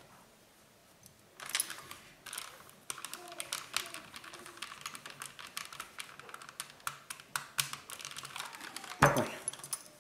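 Steam iron pressing a folded cotton hem: a faint hiss with quick clicking and crackling. A single loud knock comes near the end.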